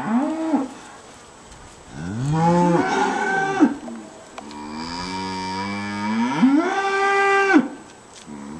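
Angus cattle mooing three times: a short moo at the start, then a longer one, then a long drawn-out moo that rises in pitch and holds for about three seconds.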